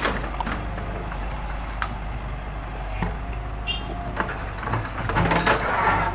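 An engine running steadily with a low drone, with scattered knocks and clatter over it and a busier patch of clatter near the end.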